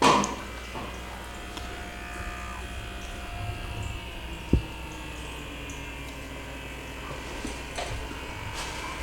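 Small electric motor humming steadily with a buzz, its pitch drifting slowly. A loud sharp knock comes right at the start and a short low thump about halfway through.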